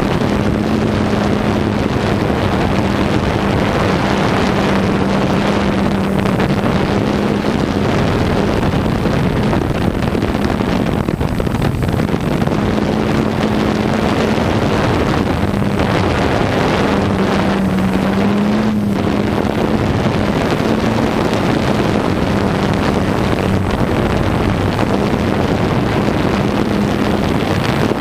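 Steady, loud rushing noise, with a continuous low hum that drops out briefly a few times.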